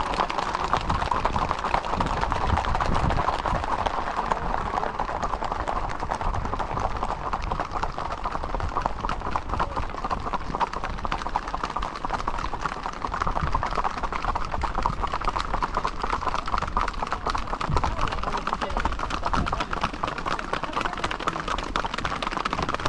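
Hooves of many ridden horses clip-clopping on an asphalt road, a fast, continuous patter of overlapping hoofbeats.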